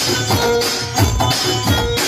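Loud dance music with a heavy, steady bass beat, played through a DJ speaker stack (sound box).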